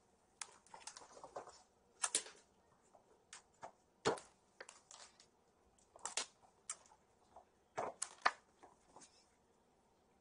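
Kittens racing about at play, their paws and claws making scattered light clicks and taps on the floor at irregular intervals, some coming in quick clusters.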